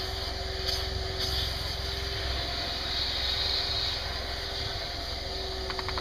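Shop vacuum motor running steadily, a constant whine over a low hum. A quick run of clicks comes near the end.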